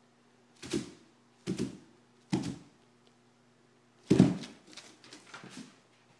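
A series of dull thumps: four loud ones, roughly a second apart, then a few softer ones near the end.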